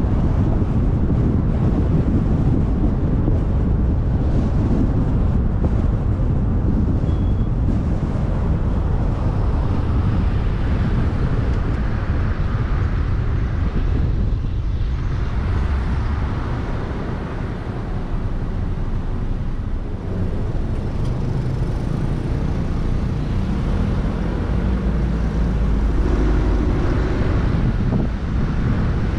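Car driving at steady speed: low rumble of road and wind noise, easing slightly about two-thirds of the way through.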